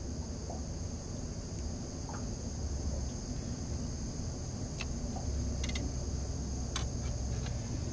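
A steady high-pitched insect buzz with a low wind rumble underneath, and a few faint clicks about five and seven seconds in as gear is handled in the aluminium boat.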